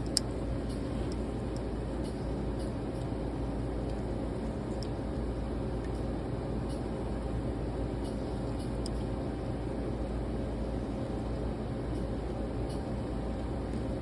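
Steady low hum of running equipment, with faint scattered clicks as plastic tubing is worked over a probe by hand.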